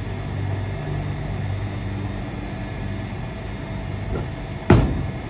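Bowling ball rolling down a wooden lane, a steady low rumble, ending in one sharp, loud impact at the far end about four and a half seconds in.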